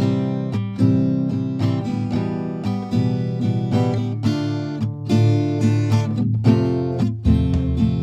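Background music: acoustic guitar strumming chords in a steady rhythm, starting abruptly at the outset.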